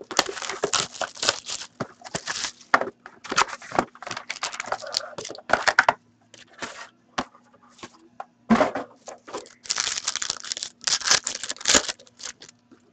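Hockey card box and card pack wrappers being torn open and crinkled by hand: quick clusters of ripping and crackling, with a lull about six to eight seconds in.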